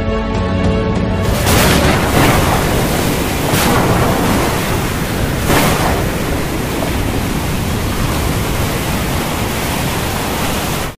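Outro soundtrack: music for about the first second gives way to a loud, steady rushing noise like surf or wind, with whooshes about one and a half, three and a half and five and a half seconds in. It cuts off suddenly at the very end.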